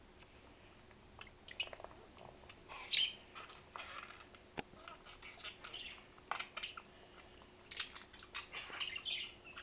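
Budgerigar chattering in short, scattered chirps and warbles, with one sharp click about four and a half seconds in.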